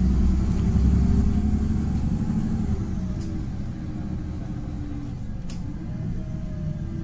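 Warsaw tram running along the street, heard from on board: a low rumble of wheels on the rails with a whine that drifts slightly in pitch. The rumble eases off about three seconds in, and a few sharp clicks cut through.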